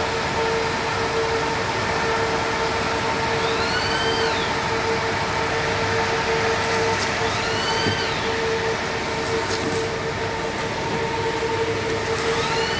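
Electric axial blower fan running steadily with a constant whirring hum and a rush of air; it is working again after its blown fuse was replaced. A short rising-and-falling chirp recurs about every four seconds.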